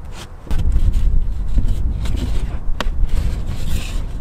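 Wind buffeting the microphone, with a few sharp knocks of wood on wood as the beehive's wooden outer cover is handled and set on.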